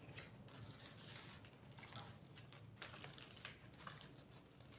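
Faint rustling and light ticking of dried banana-plant fibre strips, threaded into an over-under weave and pressed flat against a wooden tabletop.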